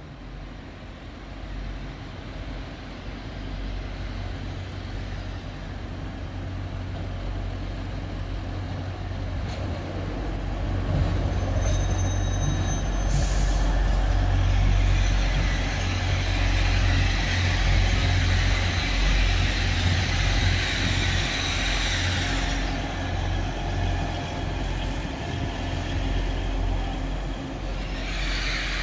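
Grand Central Class 180 diesel multiple unit running into the station, its low diesel rumble growing steadily louder as it comes closer. A brief high brake squeal comes about halfway through, then several seconds of loud hissing brake and wheel noise as it slows.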